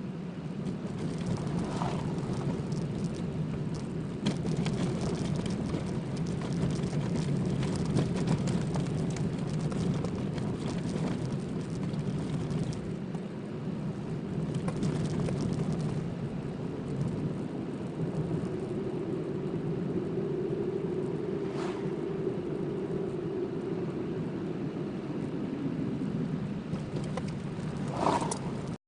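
Car driving, heard from inside the cabin: a steady drone of engine and tyres with scattered crackling from the road surface, and a few sharper ticks, one near the end.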